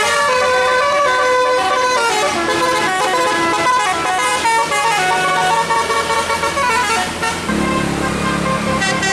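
Tour bus's musical 'telolet' air horn playing a melody of quick stepped notes over the bus engine's steady low hum. A deeper held horn tone joins near the end.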